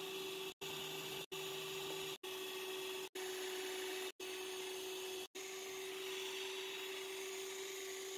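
Electric hand mixer running at top speed, a steady motor whine, whisking eggs and sugar into a thick white foam for sponge batter. The sound cuts out briefly about every second.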